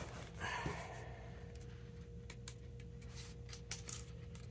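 Faint scattered clicks and rubbing as a tennis racket frame and its plastic grommet strip are handled, over a steady low hum.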